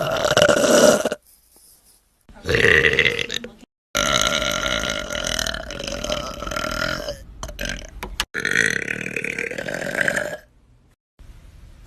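Girls belching, one long, drawn-out burp after another, about four in all, with sudden cuts between them. The longest runs about four seconds.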